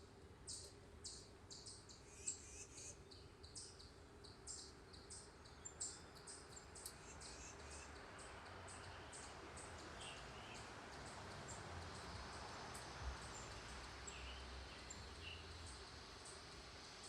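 Faint wild bird chirps: short, high chips about two a second for the first several seconds, then a few scattered notes. A soft rushing background swells in the second half.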